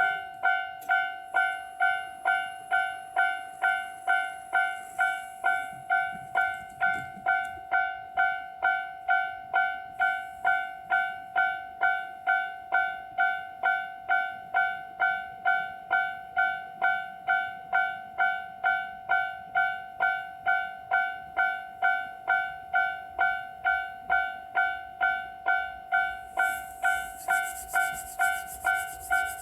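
Japanese railway level-crossing warning bell ringing, the electronic 'kan-kan' tone striking steadily about twice a second. Near the end a rushing noise and a low rumble join it.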